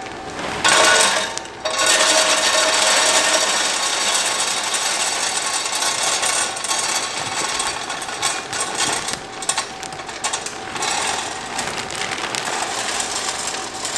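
Wood pellets poured from a plastic bag into the metal hopper of a portable pellet smoker, a continuous rattling pour that begins about a second in.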